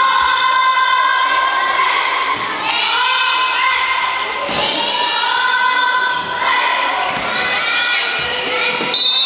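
Children's high-pitched voices calling out in long, drawn-out shouts through a dodgeball rally, echoing in a gymnasium. A rubber dodgeball thuds about four times as it is thrown, caught and bounces off the wooden floor.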